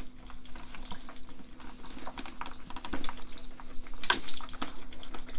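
Clicking and rustling handling noise as a full-face motorcycle helmet with attached dreadlocks is tugged on over the head, with a couple of louder knocks about three and four seconds in. A faint steady hum runs underneath.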